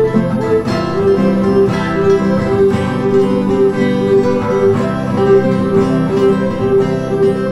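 Instrumental music played on plucked strings, led by guitar: a steady, evenly repeating run of picked notes.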